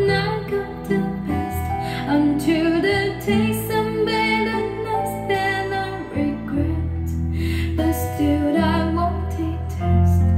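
A song with a woman singing over guitar, played back through a pair of Onkyo D-502A two-way bookshelf speakers with 20 cm woofers during a listening test.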